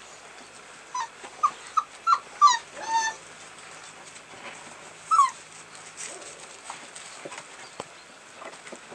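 American bulldog puppies whimpering and yelping: a quick series of short, high-pitched cries between one and three seconds in, then one more cry falling in pitch about five seconds in.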